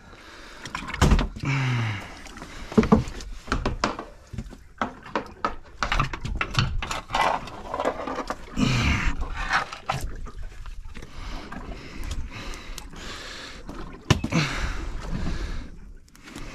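Irregular knocks and thumps of a wooden stick and a thrashing conger eel against a fibreglass boat deck and locker as the eel is handled, the loudest knocks about a second and three seconds in, with a few short vocal sounds.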